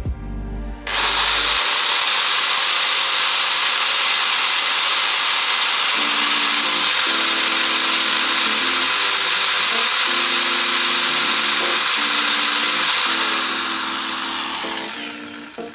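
Black & Decker electric drill running steadily under load, boring into wood, for about twelve seconds before dying away near the end.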